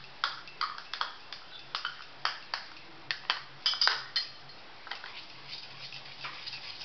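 Steel spoon clinking and scraping against a stainless steel bowl as gram flour and yogurt are beaten together into kadhi batter. Quick, irregular clinks, loudest around the middle and lighter toward the end.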